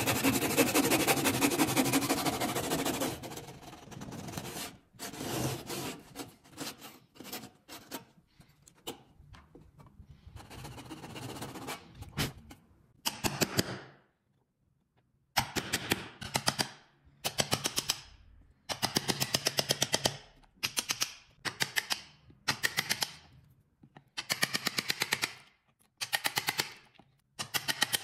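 A toothed hand tool worked on pine wood in repeated strokes, about one a second. Each stroke is a fast rattle of teeth biting the wood. Before the strokes settle into a rhythm there are scattered scrapes and taps.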